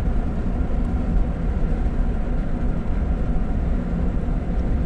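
A vehicle's engine and tyre noise heard from inside the cabin while driving on the road: a steady low rumble with a faint engine hum.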